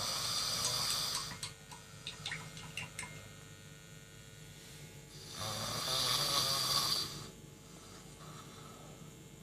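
A deeply sleeping person snoring open-mouthed: two long snores about five seconds apart, with a few faint clicks after the first.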